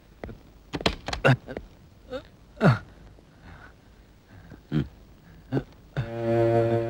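A man's short pained grunts and cries, several sliding down in pitch, among sharp hits of blows as he is beaten. A sustained music chord comes in near the end.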